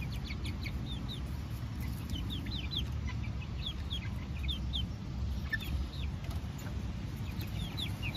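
Young chickens peeping: short, high chirps that fall in pitch, coming singly and in little clusters.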